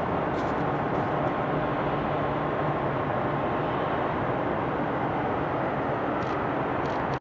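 Bombardier CRJ-900 regional jet taxiing on its two rear-mounted General Electric CF34 turbofans at low thrust: a steady rushing noise with a faint high whine.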